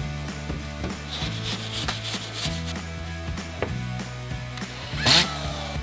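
Background music with a steady beat. About five seconds in, a corded DeWalt drywall screw gun spins up briefly with a short rising whine as it drives a screw into the drywall.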